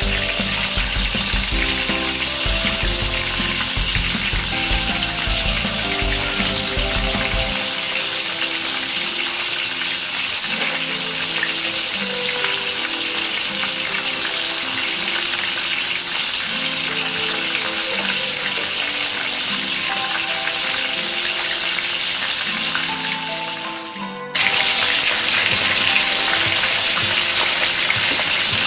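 Two whole tilapia frying in hot oil in a wok: a steady sizzle. Background music plays under it. About 24 seconds in the sizzle briefly fades, then comes back louder.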